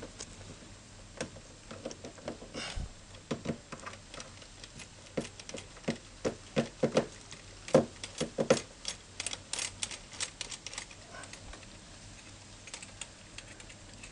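Light, irregular clicks and taps of a hand tool and small bolts as the stator mounting bolts are undone on a GY6 scooter engine. The clicks come thickest in quick runs past the middle, then thin out.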